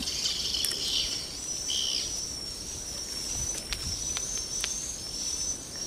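Insects trilling in a continuous high-pitched chorus, with a few faint clicks.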